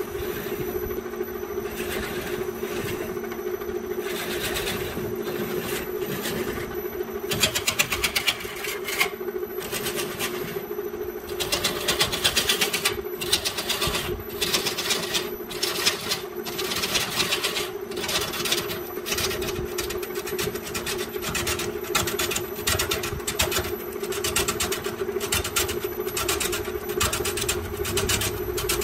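Wood lathe motor humming steadily while a hand-held turning tool cuts the spinning bamboo workpiece, in bursts of rough scraping and rapid chatter that come and go as the tool bites.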